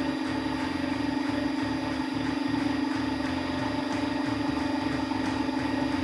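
Mackma BM76 rotary draw tube bender running, its drive turning the bend die to draw a 60.3 x 3 mm stainless steel pipe around it: a steady mechanical hum.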